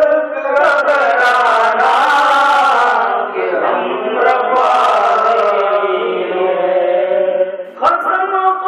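A man's voice chanting an Islamic devotional recitation in long, slowly gliding held notes, with a brief break and a click shortly before the end.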